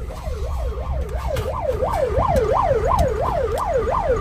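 An electronic siren wailing in quick up-and-down sweeps, about three a second, growing slightly louder, over the low rumble of a vehicle driving on a dirt track.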